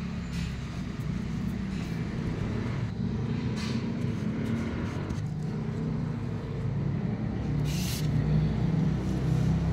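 Steady low mechanical rumble, like a motor vehicle engine running, with two brief rustles about a third of the way in and near the end.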